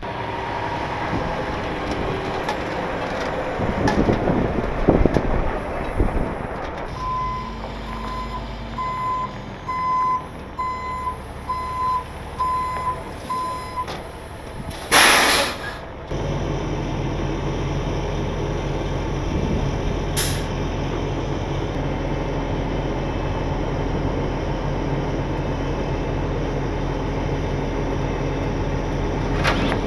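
International rollback tow truck moving up and backing into place, its reverse alarm beeping about once a second, about seven times. Then a loud hiss of the air brakes setting and a shorter hiss a few seconds later. After that the truck's engine runs steadily, driving the hydraulics as the bed tilts down into a loading ramp.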